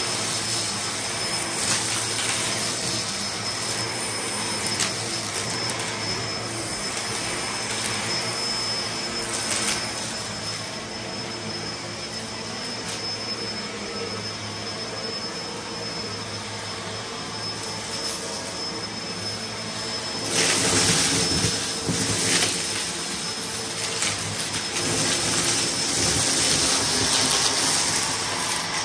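Bagless upright vacuum cleaner running steadily with a thin high whine. It gets louder and crackly twice in the last third, as it sucks up sequins, confetti and glitter that rattle through it.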